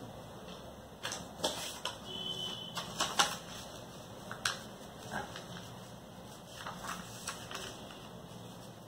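Checked cotton fabric being folded and smoothed by hand on a tabletop, with a paper pattern laid on it: soft rustles and scattered light taps.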